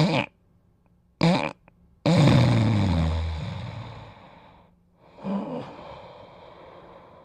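A sleeper snoring and snorting: two short snorts, then a long snore about two seconds in whose pitch falls as it fades, and a weaker snort about five seconds in.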